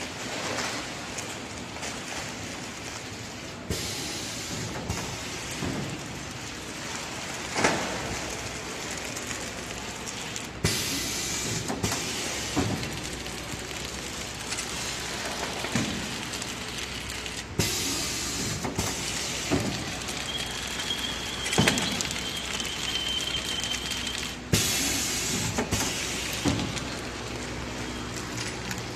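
Reciprocating bread-bun bag packing machine running, with a steady mechanical noise and repeated irregular clanks and knocks from its moving parts. A faint high whistle sounds briefly about two-thirds of the way through.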